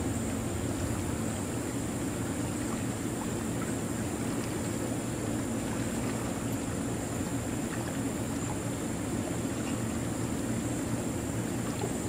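Shallow creek water running and trickling over stones and silt close to the microphone: a steady rushing sound.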